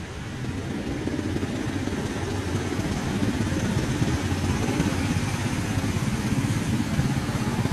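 A motor vehicle engine running, getting louder over the first few seconds and then holding steady as a low, rapidly pulsing rumble.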